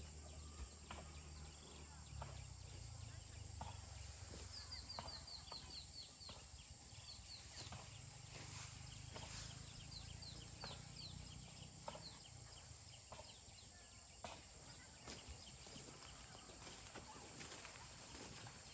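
Faint countryside ambience: insects give a steady high-pitched drone. Twice, a bird sings a quick series of short falling notes. Faint scattered clicks are heard throughout.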